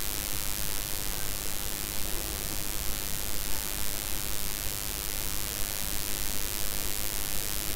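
Hilsa fish pieces in spice masala sizzling steadily in a pot as a constant hiss.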